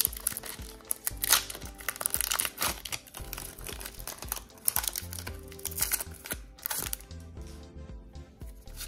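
Foil trading-card booster pack wrapper crinkling and tearing as it is opened by hand, in many short crackles. Soft background music underneath.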